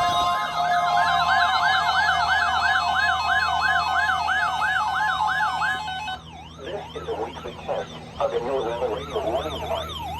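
Broadcast warning alarm test tones: a steady alarm tone under a siren-like warble that sweeps up and down about three to four times a second. About six seconds in the sound drops in level and becomes a tangle of several lower, overlapping warbling tones.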